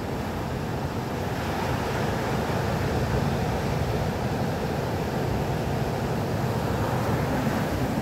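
Ocean surf washing onto the beach, a continuous rush of breaking waves that swells from about a second and a half in, with wind rumbling on the microphone.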